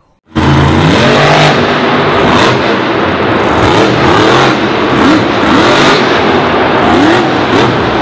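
Monster truck's supercharged V8 engine revving hard and loud, its pitch rising and falling again and again as the truck drives and wheelies on the dirt track. It cuts in suddenly just after the start.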